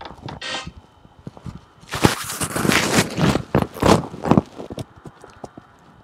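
Scattered clicks of computer keys being tapped as a command is typed. A louder stretch of rustling and scraping handling noise starts about two seconds in and lasts about two and a half seconds.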